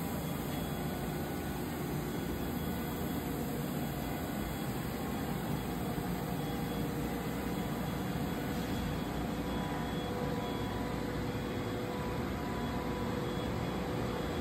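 Steady hum and whir of industrial machinery running, with faint steady tones over an even low rumble.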